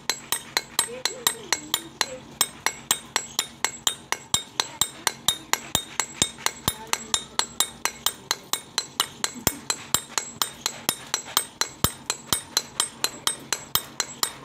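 Steel pick hammers pecking the face of a sil grinding stone, a fast, even train of sharp ringing clinks at about five strikes a second. The stone's surface is being roughened with fresh pits so it will grind chutney and spices again.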